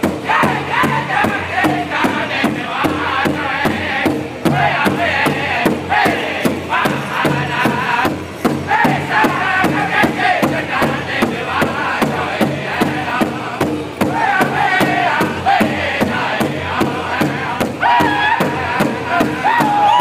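Powwow drum group singing high-pitched in unison while beating one large shared drum with sticks in a steady beat, about three strokes a second.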